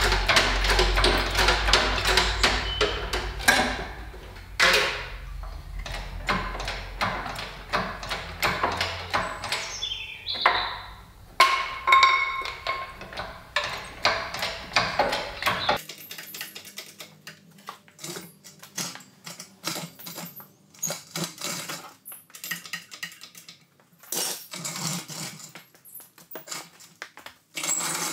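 Metal clinking, knocking and rattling as a Saab 99 Turbo engine is worked up and out of the engine bay on an engine crane's chain and straps, parts knocking against the body and crane. A low hum under the first half stops abruptly about halfway through, after which the knocks are sparser and quieter.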